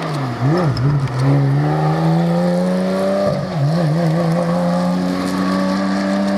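Rally car engine running hard: the pitch dips and wobbles about half a second in, then climbs steadily as it accelerates. It drops sharply at a gearshift about three seconds in, wobbles briefly, and then holds high and steady.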